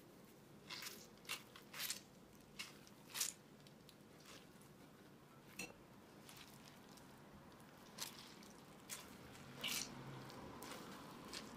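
Grated raw potato being squeezed by hand to press its water out: a series of short, irregular wet squishes and crunches, fairly soft.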